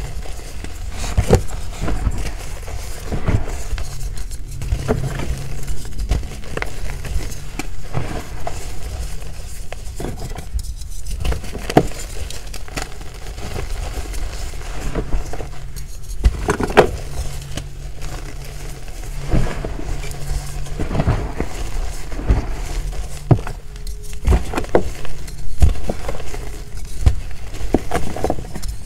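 Hands squeezing and crumbling handfuls of powdery gym chalk, a soft crunching with many small crackles and pops.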